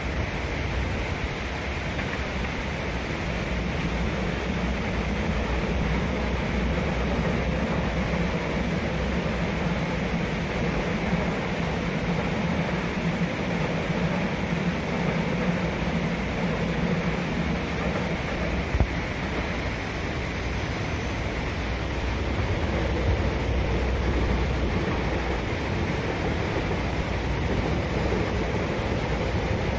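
Passenger train passing along the line: a steady rumble of locomotive and wheels on the rails, with a low engine drone that is strongest for the first two-thirds and then eases.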